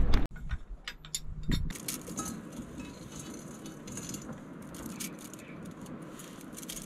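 Light clinks and knocks of small gear being handled in a timber boat's open cockpit, scattered and irregular, after a single louder clunk at the very start.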